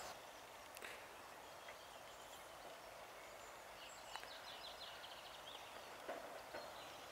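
Very quiet countryside ambience: a faint steady hiss with a few distant bird chirps through the middle and a couple of faint clicks.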